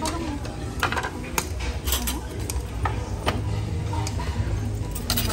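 Clatter of plastic food trays and dishes being set down on a table: a string of sharp clinks and knocks over a low steady hum.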